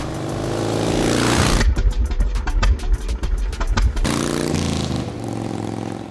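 Motorcycle engine running close by in road traffic. It swells over the first second and a half, is loudest with a rough, choppy rumble until about four seconds in, then settles lower and steadier.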